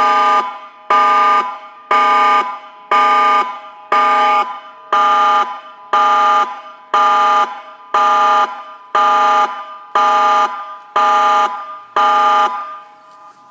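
Tsunami warning siren on test, sounding a loud pulsed tone of several steady notes together, about one blast a second, each blast echoing away before the next. The blasts stop near the end.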